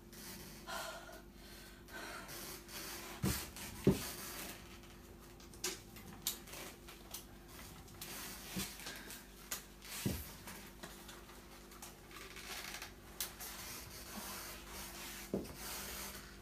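Leather motorcycle race suit rubbing and creaking as the wearer moves and settles into it, with scattered light knocks and clicks from a motorcycle helmet being handled, the loudest about four seconds in.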